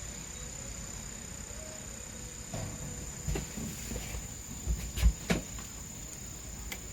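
Insects trilling with a steady, thin high-pitched tone, with a few dull knocks from about the middle on, two of them louder a little after five seconds in.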